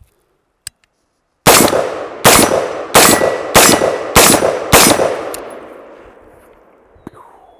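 Six shots from an unsuppressed 5.56 AR-15 pistol, fired at a steady pace a little under a second apart. Each is a sharp crack, and a long echoing tail dies away after the last shot.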